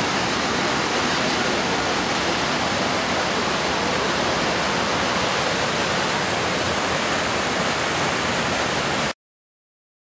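Steady rushing of the 9/11 Memorial South Pool waterfall, water pouring down the granite walls of the reflecting pool; it cuts off abruptly about nine seconds in.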